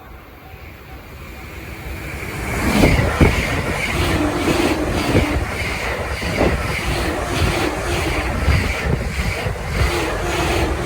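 Electric train on the Joban Line passing a level crossing at high speed. Its rush builds over the first couple of seconds, then stays loud with rhythmic wheel clatter over the rail joints. The crossing's warning bell rings in steady pulses as the train approaches.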